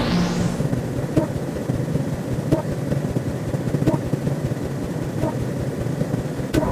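Electronic sci-fi sound effect: a rising sweep tops out just after the start, then a rumbling drone carries on with a faint click about every second and a half.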